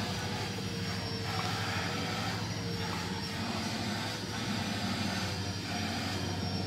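A small motor running steadily: a constant hum with a thin high whine that wavers slightly in pitch.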